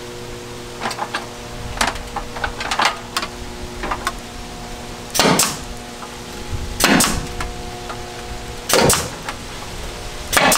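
Pneumatic staple gun firing four times, roughly every one and a half to two seconds, driving staples into cedar trim boards, each shot a sharp crack with a short hiss of air. Lighter clicks and knocks come before the first shot.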